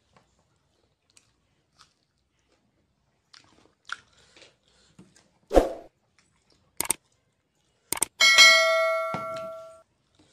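Small stainless steel bowl set down on a table with a clang, ringing with a bright metallic tone that dies away over about a second and a half. A dull thump and a couple of sharp clicks come a few seconds before it.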